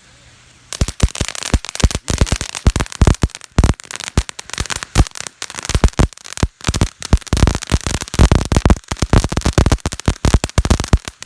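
Lil' Patriot Javabreak consumer firework going off: about a second in it starts abruptly into loud, rapid, irregular crackling and popping that keeps going without letup.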